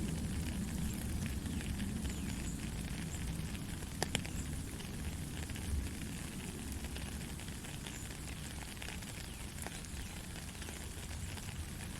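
Heavy rain falling steadily, dense patter of drops over a low constant rumble, with a few sharper drop clicks, the loudest about four seconds in.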